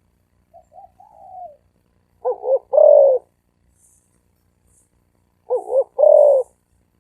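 Spotted dove cooing. A soft, faint coo comes about half a second in, then the full call twice, about three seconds apart: two short notes followed by a longer note.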